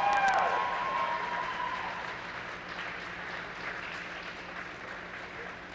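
Audience applauding, loudest at the start as the last notes of the music die away in the first second, then slowly fading.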